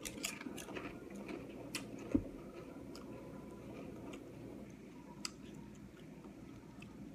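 Two people chewing and crunching potato chips: scattered small crisp cracks over soft mouth noise, thinning out in the second half. A single low thump about two seconds in.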